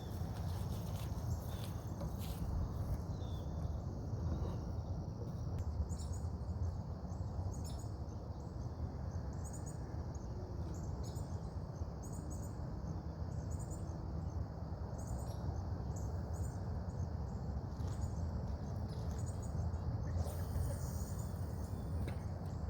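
Insects droning steadily at a high pitch, with short high chirps repeating about once a second from about five seconds in, over a steady low rumble.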